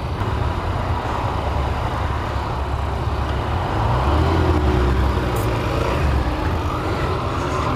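Yamaha FZ-09's inline-three engine running as the bike pulls away at low speed, a steady low rumble under an even rush of noise, its pitch wavering slightly about halfway through.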